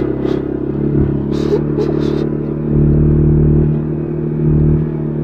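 CFMOTO ATV engine running at a steady pitch as it rides along a dirt trail, with a few brief scratchy noises about a second and a half in. From a little under three seconds in the low engine rumble gets louder.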